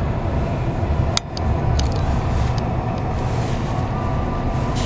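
Steady road and engine rumble heard from inside a vehicle's cab while it drives, with one sharp click a little over a second in.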